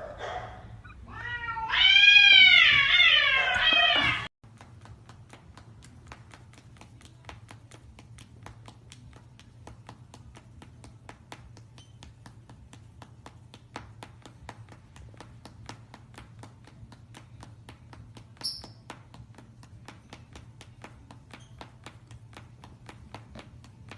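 A domestic cat meowing in long, loud, drawn-out calls that rise and fall in pitch, cut off abruptly about four seconds in. After that there is only faint, regular clicking over a low hum.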